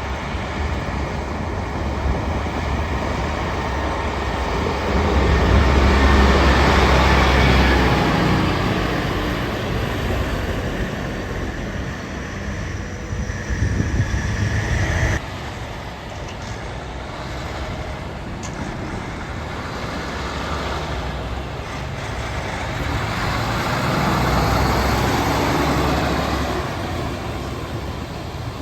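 Heavy trucks passing on the road, with engine and tyre noise swelling as each one goes by, loudest twice. About halfway through, a louder stretch cuts off suddenly.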